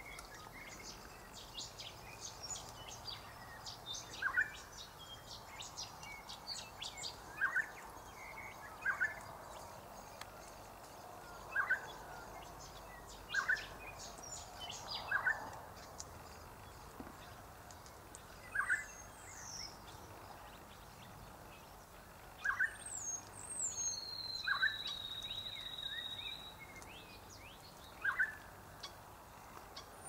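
Wild birds calling: one bird repeats a short, falling note every few seconds, among scattered higher chirps, and a long, even high whistle comes near the end.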